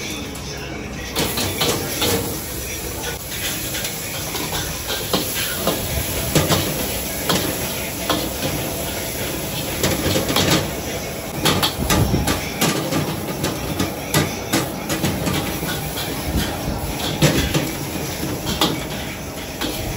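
Stir-frying in a wok: a metal ladle scraping and clanking against the wok many times at an uneven pace, over a steady hiss of food sizzling on a gas burner.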